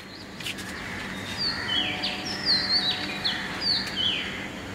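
Songbirds calling at dawn: a run of short, high whistled notes, several sliding down in pitch, over a steady low background hum, fading in at the start.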